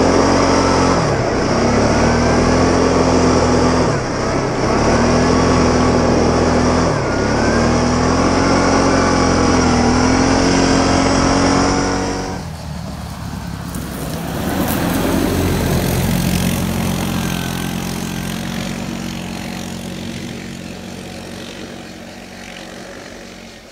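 Goes 520 quad's engine, heard up close from on board, revving up and down again and again as the throttle is worked. About halfway through it changes to the quad heard from beside the track, swelling briefly and then fading as it rides away.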